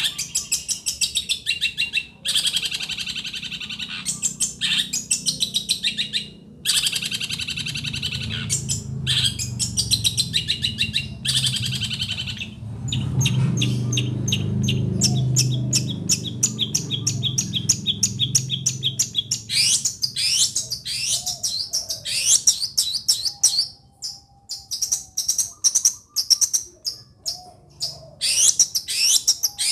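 Long-tailed shrike singing loudly: bursts of rapid chattering notes, then from about two-thirds of the way through a run of separate slurred whistles falling in pitch. A low hum sits underneath for a few seconds in the middle.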